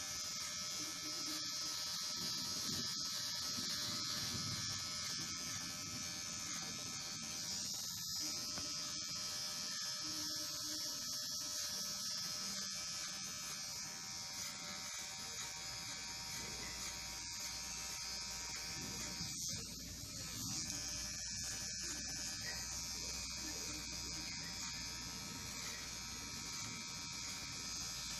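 Kemei KM-2850 electric hair clipper running steadily while cutting hair, a constant buzz.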